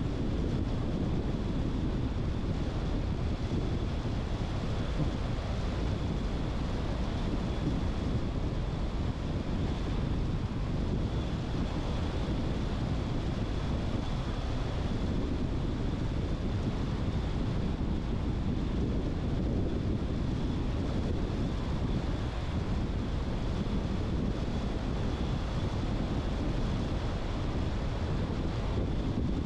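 A car driving along a road: steady road and wind noise, heaviest in the low rumble, with a faint steady high-pitched whine.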